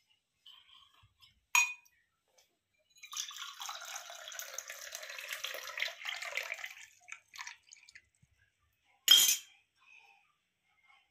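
Lemon sharbat poured from a steel bowl into a steel tumbler, running and splashing for about four seconds. A sharp clink of steel vessels comes before the pour and another near the end.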